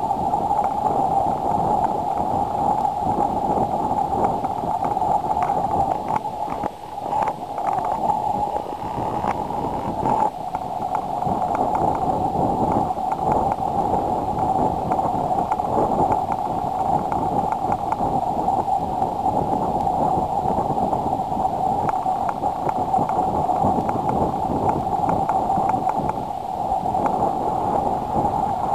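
A steady, unchanging engine hum mixed with rushing wind and water noise.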